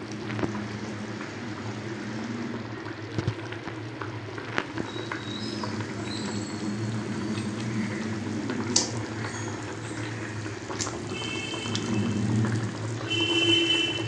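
Pomfret curry gravy boiling hard in a metal wok: a steady bubbling with a few sharp clicks.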